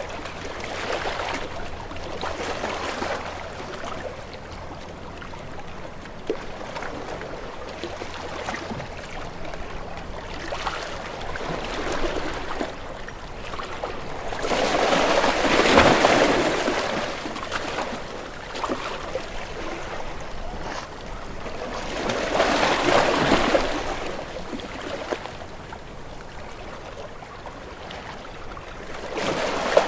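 Sea waves washing in and breaking, a steady rush of water that swells and falls, with the biggest surges about halfway through, again a few seconds later, and another starting near the end.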